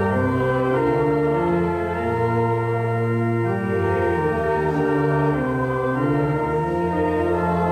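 Church organ playing slow, sustained chords that change about once a second.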